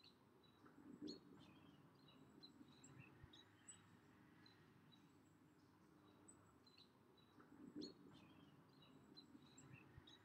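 Near silence outdoors: faint bird chirps and twitters over a soft low background hum, with two brief soft sounds, about a second in and again near eight seconds.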